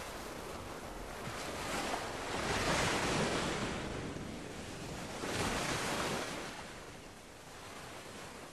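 Waves washing in, a rushing sound that swells and fades about every two and a half seconds, growing softer near the end.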